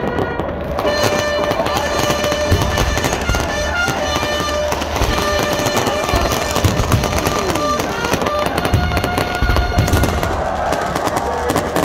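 Fireworks going off overhead: dense, rapid crackling and popping with a few heavier bangs, with music playing underneath.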